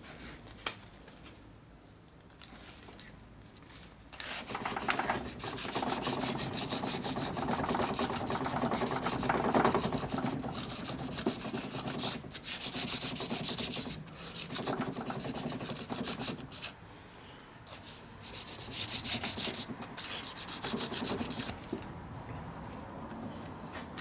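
Rust being scrubbed off metal by hand with fast back-and-forth abrasive strokes, like sanding. A long spell starts about four seconds in, and a shorter one comes near the end.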